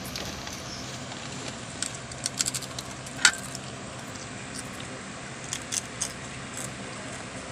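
Plastic bag of tortilla chips crinkling and crisp tortilla chips being crunched: a scatter of sharp crackly clicks, the loudest about three seconds in and another cluster near the end, over a low steady hum.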